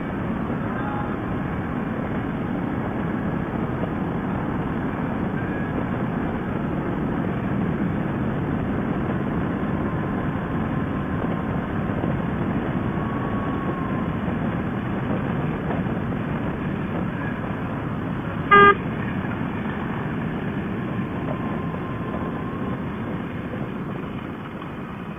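Harley-Davidson bagger riding at highway speed: a steady rush of wind and engine noise. About 18 seconds in, a horn gives one short toot.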